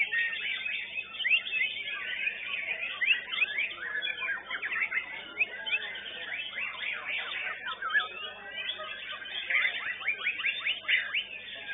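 White-rumped shamas (murai batu) singing in a contest: a dense, unbroken run of quick whistled notes, rapid sweeping chirps and trills, several birds overlapping.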